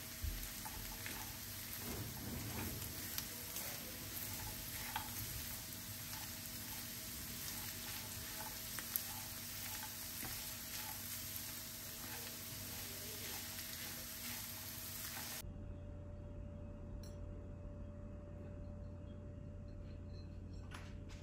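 Minced meat, onion, carrot and walnuts sizzling in a nonstick frying pan as a silicone spatula stirs them, with light taps and scrapes about once a second. About fifteen seconds in, the frying stops abruptly and only a quieter steady hum is left.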